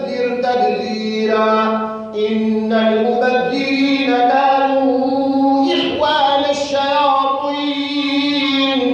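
An imam reciting the Quran aloud in melodic tajwid style: one man's voice chanting long held notes that step and bend in pitch, with a brief pause for breath about two seconds in.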